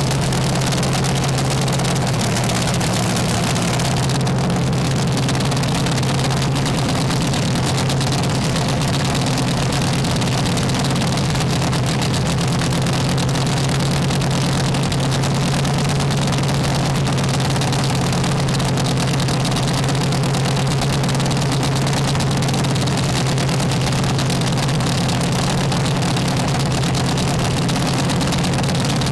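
Top Alcohol Dragster's methanol-burning V8 idling steadily, a loud, even low-pitched drone that holds one pitch throughout.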